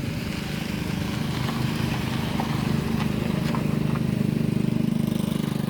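A small motorcycle engine running steadily at an even pitch, growing a little louder through the second half.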